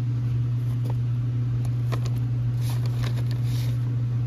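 A steady low hum with a few faint, scattered clicks and rustles.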